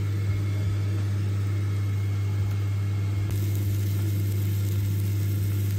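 Salmon frying in a non-stick pan, a steady hiss, under a louder steady low hum from a motor.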